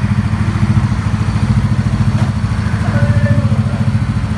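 CVT scooter engine idling steadily with a fast, even pulse, freshly rebuilt after its worn connecting rod bearing and crankshaft were repaired.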